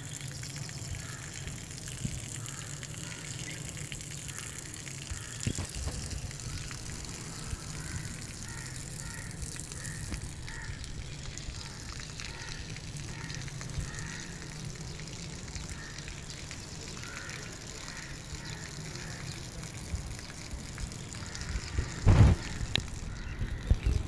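Outdoor ambience: a steady low rumbling hiss, like wind on the microphone, with faint short bird chirps repeating in the background. A few loud bumps come near the end.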